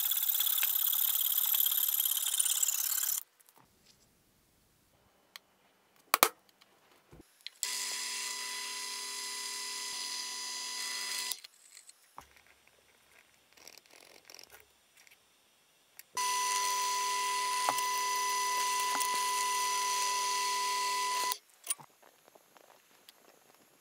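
Hacksaw cutting through aluminium flat bar for about three seconds, then an electric drill running twice with a steady whine, about four and five seconds long, drilling holes in the aluminium bracket held in a vice. Faint small clicks of a hand tap threading a hole near the end.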